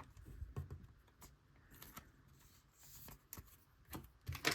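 Faint handling of trading cards: soft slides and scattered light taps as baseball cards are flipped through and set down.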